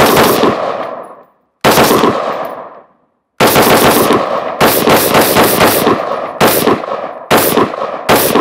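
Daniel Defense Mk18 pistol with a 10.3-inch barrel firing 5.56 rounds. The echo of one shot rolls away, a single shot follows a little under two seconds in, and from about three and a half seconds in comes a quick string of shots, about three a second, each trailing an echo.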